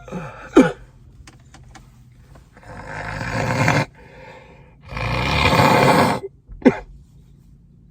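A man with a congested head cold blowing his nose hard twice, each blow lasting over a second and growing louder. There are short coughs near the start and one more near the end.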